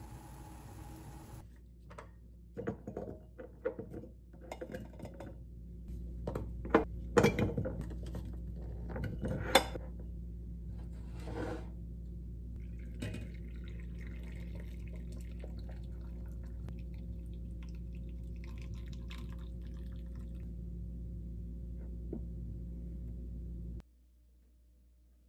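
Clinks and knocks of a stainless pot against glass jars, the loudest about seven and nine and a half seconds in, then hot pickling brine being poured into glass jars of sliced cucumber, with a steady low hum underneath.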